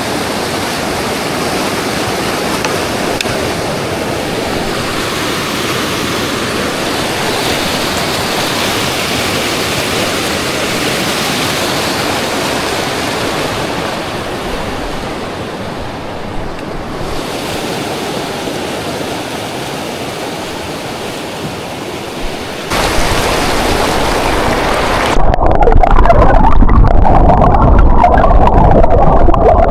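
Rushing mountain creek, a steady loud hiss of fast water. About three-quarters of the way through, the sound turns louder and deeper; a couple of seconds later the high hiss drops away abruptly, leaving a heavy low rumble.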